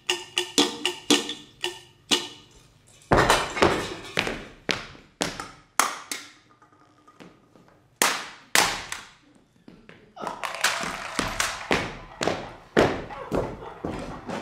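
Schuhplattler-style slap dance: hands slapping thighs and shoe soles and feet stamping, a quick, uneven run of sharp smacks with heavier stamps in between.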